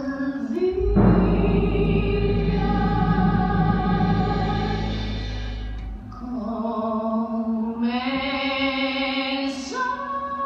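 Stage-musical orchestra and singing voices holding long sustained chords. The first swells in about a second in with a deep bass and fades away, and a second chord enters around six seconds in and climbs in pitch.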